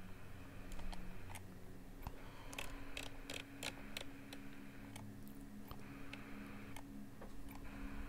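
Faint, irregular light mechanical clicks and ticks, bunched together between about two and four seconds in, over a low steady hum.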